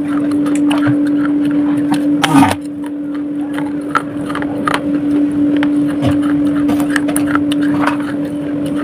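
Biting and crunching on a shard of baked clay pot (matka), with many short crackles and one loud snap about two and a half seconds in. A steady electric hum from an air cooler runs underneath.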